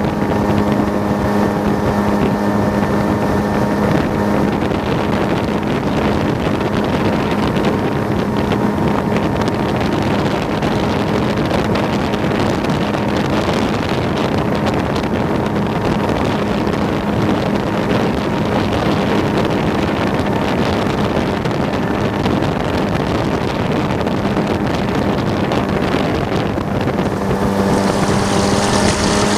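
Boat motor running steadily at one pitch, with a rush of wind and water over it; near the end a higher hiss grows louder.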